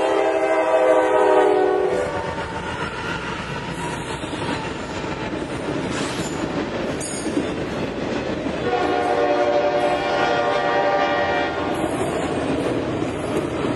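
Freight train passing over a grade crossing: its multi-chime horn sounds a chord until about two seconds in, then the steady rumble and clickety-clack of autorack cars rolling by. A horn chord sounds again from about nine to twelve seconds.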